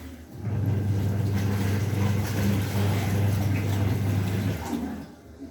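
Washing machine motor humming steadily as the drum agitates, stopping briefly near the start and again for about a second near the end before starting up again.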